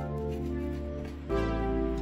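Background music: sustained synth chords that change about a second and a half in.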